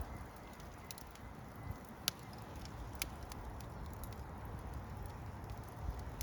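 Fire crackling: scattered sharp pops over a steady hiss, the loudest about two seconds in and another about three seconds in.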